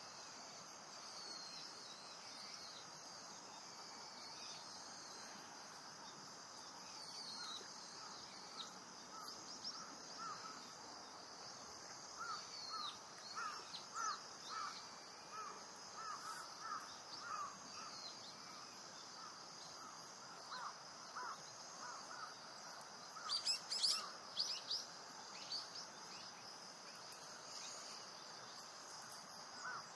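A steady insect chorus, with wild birds calling over it: a long run of short repeated notes through the middle, and a brief cluster of higher, downward-sliding calls about three-quarters of the way through.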